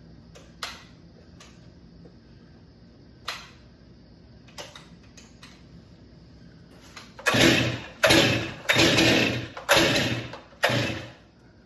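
Stihl MS 261 C two-stroke chainsaw being pull-started: five quick, loud pulls on the starter cord about a second apart, with the engine not catching on any of them. A few light clicks come before the pulls.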